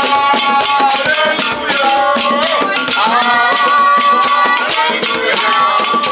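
Church worship music: held, sung melody lines over a fast, steady beat of shakers and drums.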